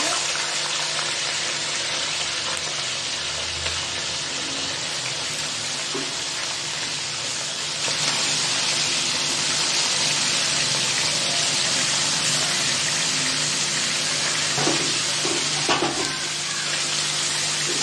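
Raw beef shank pieces frying in hot oil in a large metal karahi: a steady sizzle that grows louder about eight seconds in. A few knocks near the end.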